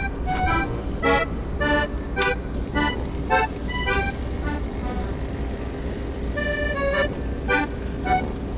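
Background music: a run of short, bright pitched notes, then a few longer held tones, over a steady low rumble.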